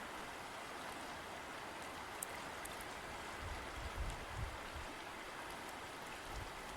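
River water flowing steadily in a continuous rushing hiss, with a few soft low rumbles around the middle.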